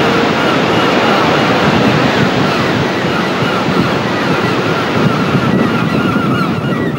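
Heavy surf breaking on a river-mouth bar, with wind buffeting the microphone. Birds start calling repeatedly about five and a half seconds in.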